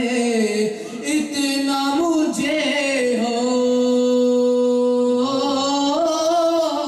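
A young man singing an Urdu devotional naat solo and unaccompanied, drawing one syllable out in a long melismatic line. About three seconds in he holds a single steady note for roughly two seconds before the melody moves again.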